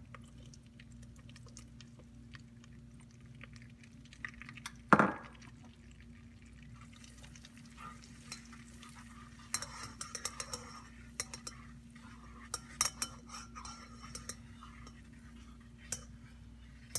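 A wire whisk scraping and clinking in a saucepan, stirring flour into melted butter, in a run of quick clinks from about ten seconds in. A single loud knock comes about five seconds in, over a low steady hum.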